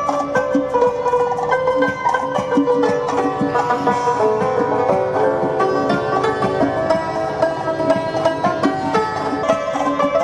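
Background music led by a plucked string instrument, playing quick runs of notes.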